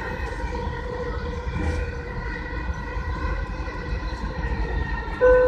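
Dubai Metro train running: a steady low rumble with a steady whine of several held tones. Near the end, the first note of the onboard chime that comes before the next-station announcement sounds loudly.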